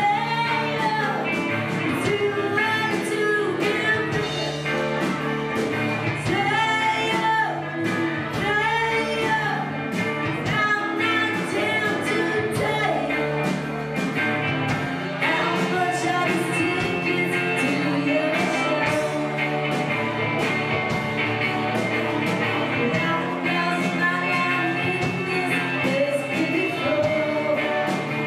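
Indie rock band playing live: singing over electric guitars and a steady drum beat.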